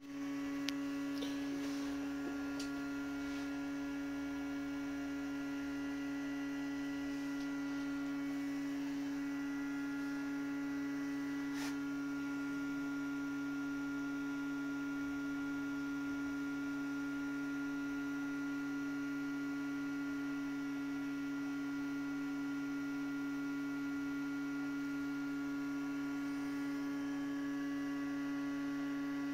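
A steady electrical hum on one low pitch with fainter higher tones above it, unchanging throughout. A few light clicks come in the first three seconds and one more about twelve seconds in.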